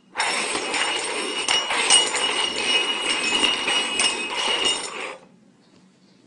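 Hard cups clattering and clinking with a jingling ring as they are shuffled around on a hard surface, setting up another round of a find-the-hidden-treat game. The sound stops abruptly about five seconds in.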